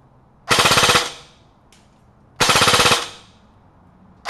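Echo1 XCR airsoft electric rifle (AEG) firing short full-auto bursts of rapid clicking shots, each about half a second long: two bursts, then a third starting at the end. It cycles at about 17 rounds per second on a 7.4 volt LiPo battery.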